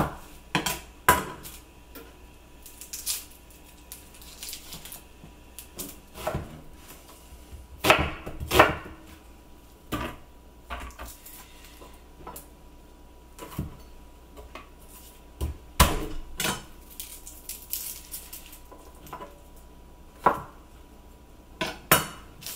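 A kitchen knife knocking on a wooden cutting board in scattered, irregular strikes, some in quick pairs, as garlic cloves are cut up.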